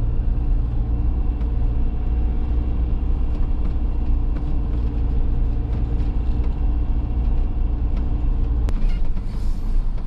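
Motorhome engine and road rumble heard from inside the cab, a steady low drone. Near the end the low rumble drops away abruptly, with a click.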